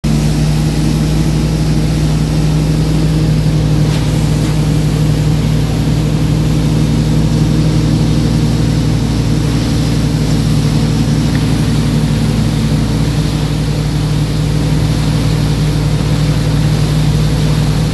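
Motorboat engine running at a steady pitch while under way, with the rush of churning wake water behind the stern.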